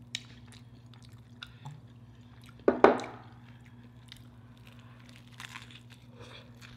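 Bites into a crisp deep-fried taco, with crunching and chewing close to the microphone, heard as many small clicks. A short, loud voiced sound comes about three seconds in, over a steady low hum.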